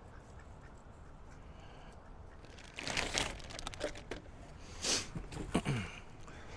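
Plastic packaging crinkling in bursts as it is handled in a cardboard box, about three seconds in and again around five seconds.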